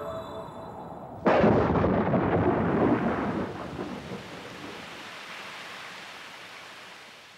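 A sudden clap of thunder about a second in, rumbling on and slowly dying away over several seconds.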